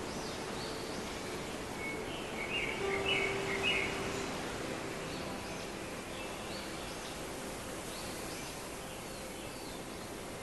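Small birds chirping in short repeated phrases over a steady outdoor hiss. The loudest run of chirps comes two to four seconds in.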